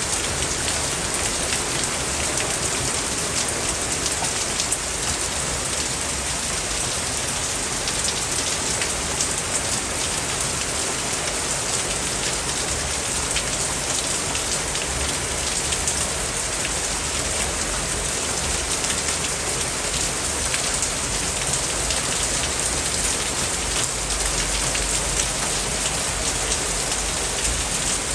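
A steady, dense hiss with a fine crackling patter of many tiny ticks. It has a rain-like character, with no tune and no beat.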